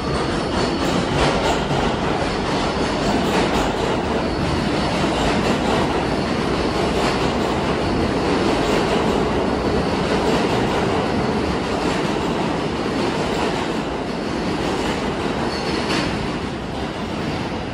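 New York City subway trains running through an underground station: a steady rumble with wheels clattering over rail joints. A few brief high wheel squeals come near the start and again near the end.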